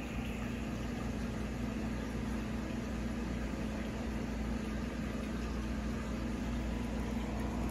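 Steady hum of a running reef aquarium's equipment, with a low buzzing tone and no change throughout.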